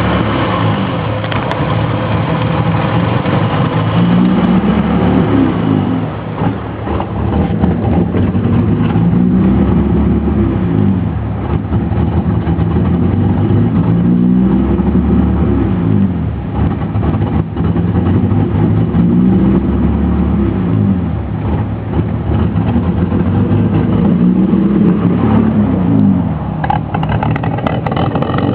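BMW E30's M20 straight-six idling roughly, its engine speed rising and falling in a repeating cycle about every five seconds.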